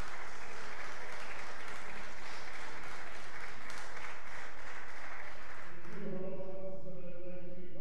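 Audience applauding. About six seconds in the clapping dies away and held, sung tones begin.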